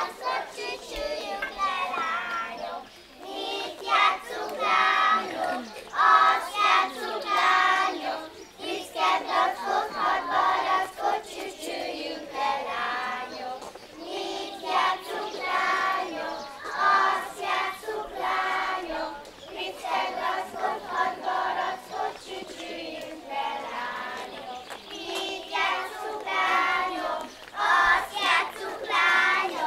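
A group of young children singing a folk song together while they dance, with no instruments.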